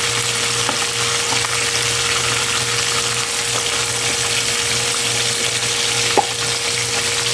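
Milkfish (bangus) pieces sizzling steadily as they deep-fry in hot oil in a wok, with a single light click about six seconds in.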